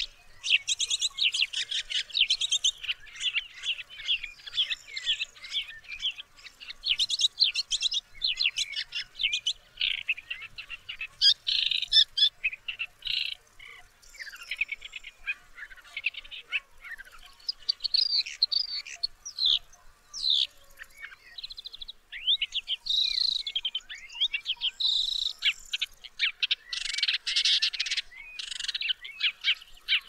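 Woodchat shrike singing: a long, varied run of rapid chattering and warbling notes, in phrases broken by short pauses.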